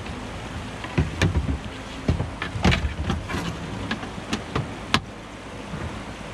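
Steady rush of moving river water with a run of sharp, irregular knocks and clunks from about one second in to about five seconds in, the sound of a kayak and its gear being knocked about while paddling through.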